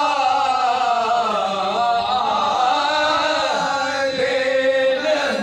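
Men singing a salam in soz khwani style, the elegiac Urdu chanting of Shia mourning gatherings, with no instruments. The lead voice holds long notes and slides slowly between pitches, and the others join him.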